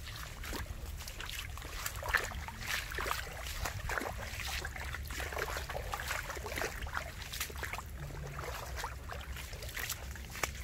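Footsteps splashing and squelching through shallow muddy water on a rain-soaked grassy trail, irregular and uneven, over a steady low rumble.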